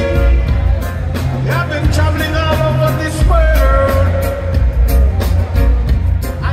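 Live reggae band playing, with a male vocalist singing a gliding melody over a heavy bass line and a steady drumbeat, heard through the concert sound system.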